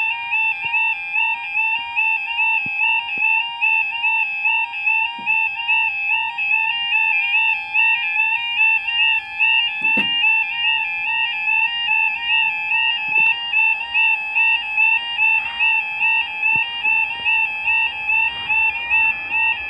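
Level crossing audible warning alarm sounding: a two-tone yodel that steadily swaps between two close pitches about twice a second. It warns road users that a train is approaching and the barriers are coming down.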